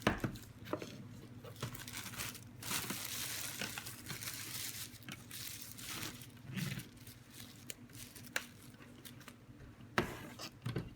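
Packaging rustling and crinkling as a cat water fountain and its accessories are lifted out of their box, with scattered sharp knocks and clicks, the loudest just after the start and near the end.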